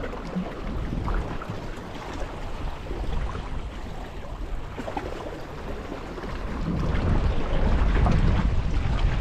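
Wind buffeting the microphone, a low rumbling noise that gets stronger about seven seconds in.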